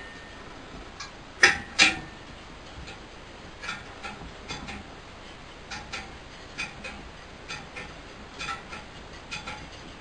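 Metal clinks and ticks from a wire mesh ring inside a beehive hair dryer hood being wrenched by hand, its spot-welded legs not giving way. There are two sharp clanks about a second and a half in, then lighter clicks, often in pairs, every second or so.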